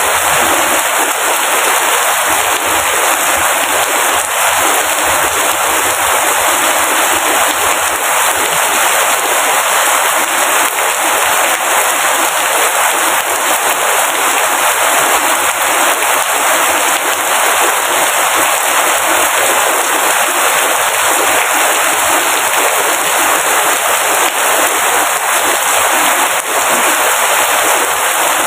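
Steady heavy rain falling, a dense, even hiss with fine crackling patter of drops on a surface.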